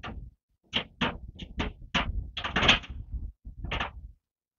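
Irregular series of metal knocks and clunks as gloved hands work bolts and the steel cutting edge along the bottom of a snowplow blade, with a quick run of clunks about two and a half seconds in.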